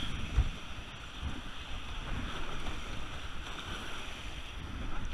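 White water rushing below a concrete weir around a kayak, with wind buffeting the microphone in low thumps.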